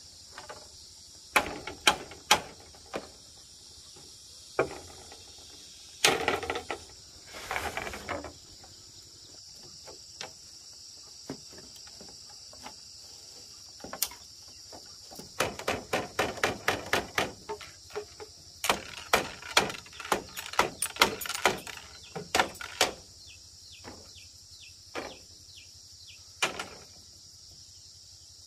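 Irregular knocks and clatters, some coming in quick runs, over a steady high drone of insects.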